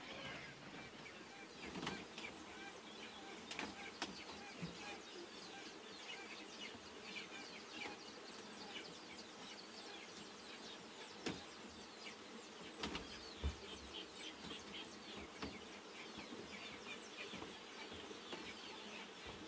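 Birds chirping and chickens clucking, faint, with a few sharp knocks scattered through.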